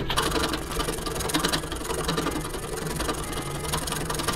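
Hand file rasping in rapid back-and-forth strokes across a steel ball-bearing drawer slide, roughening the spot where it will be soldered so the solder takes.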